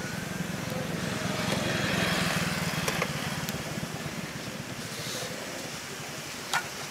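A low engine hum swells to its loudest about two seconds in and then eases off, over faint rustling as banana leaves are rolled by hand. There are a couple of light clicks.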